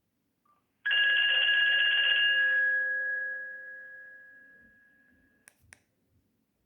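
Nokia 2610 mobile phone's speaker playing a ringtone: one bell-like chime that starts about a second in and slowly fades out over about four seconds. Two short clicks follow near the end.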